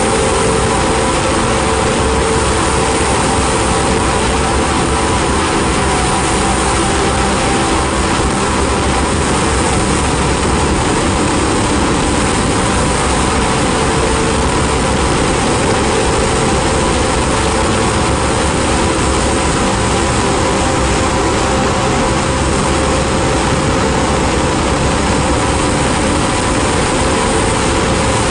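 Ambient noise-drone music: a dense, unchanging wash of hiss spread across the whole range, with a few held tones faintly beneath it and no beat or melody.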